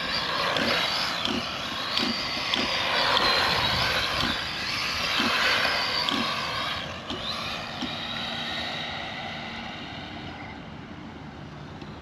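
Electric motor of a ZD Racing RX12 RC rally car whining as it is driven, the pitch rising and falling with the throttle, over a hiss of tyres on the ground. The sound grows fainter after about seven seconds as the car moves away.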